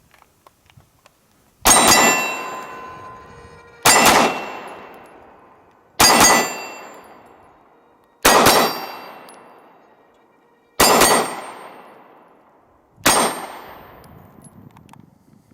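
Glock 26 9mm pistol firing six deliberate single shots, a little over two seconds apart, each followed by a long echoing decay.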